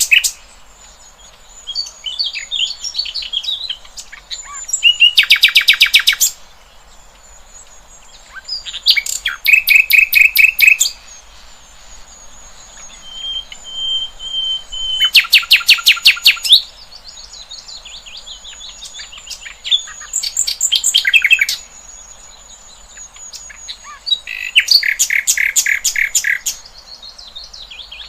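Songbirds singing: every few seconds a loud burst of fast, rapidly repeated notes lasting a second or two, with softer twittering between the bursts. A thin, steady high tone runs underneath.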